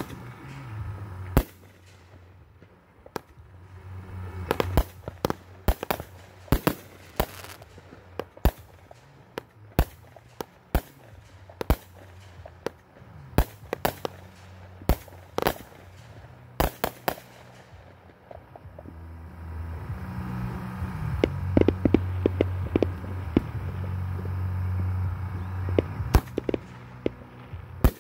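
Aerial firework shells bursting in quick succession, dozens of sharp bangs one after another, as in a fireworks finale. A steady low hum runs underneath in the second half.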